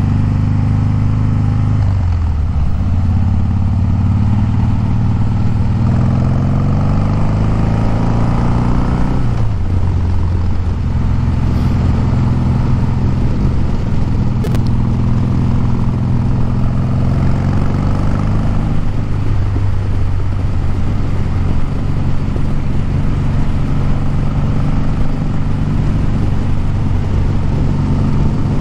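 Harley-Davidson Breakout's V-twin engine pulling the motorcycle up through the gears, its pitch rising and dropping back at each shift in the first ten seconds, then running steadily at road speed.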